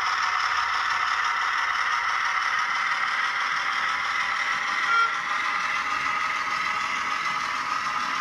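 OO gauge model goods wagons rolling along the track, a steady rattle and clatter of their small wheels on the rails.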